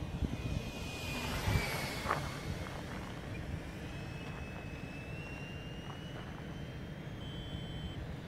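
HSD Diamond Skysword RC model jet whining past in a low flyby, its pitch dropping as it goes by about two seconds in. It then continues as a fainter, steady whine that edges up in pitch as it flies away, with wind rumbling on the microphone underneath.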